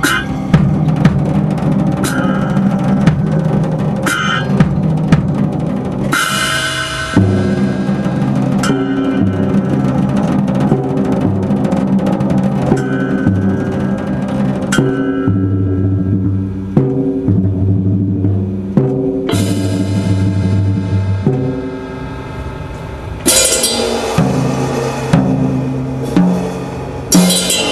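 Drum kits and percussion playing a fast instrumental piece, with bass drum, snare rolls and cymbal crashes over held pitched notes that change every second or two.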